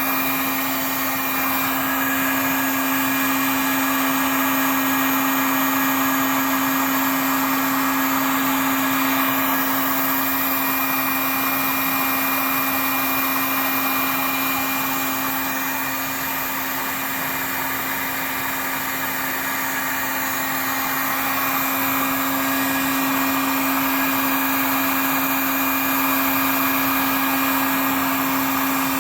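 Electric heat gun running steadily, a constant fan whirr with an even hum, blowing hot air to melt and cure the resin of exhaust repair tape patched over holes in a resonator pipe.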